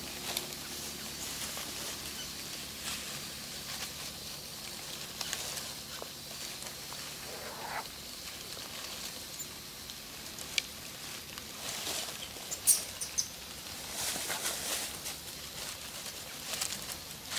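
Dry fallen leaves rustling and crackling in scattered short bursts as monkeys shift and crawl over the leaf litter, with one sharper crackle about two-thirds of the way through.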